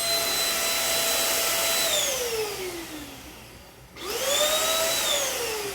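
Handheld bed and sofa vacuum cleaner motor running with a steady whine, switched off about two seconds in and winding down in pitch to a stop, then switched on again about four seconds in, spinning up quickly, and winding down once more near the end.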